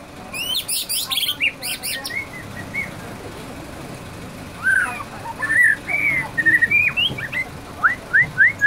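White-rumped shama (murai batu) singing in its cage, a song that mimics canary song: a very rapid, high trill in the first two seconds, then varied whistled phrases, and near the end a run of short rising whistles, about three a second.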